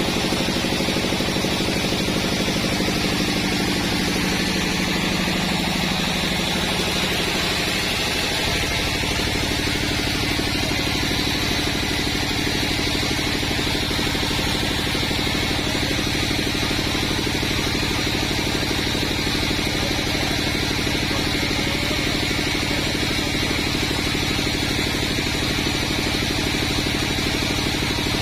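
Band sawmill running steadily as it saws a waru (sea hibiscus) log into boards; the machine's low hum changes about eight seconds in.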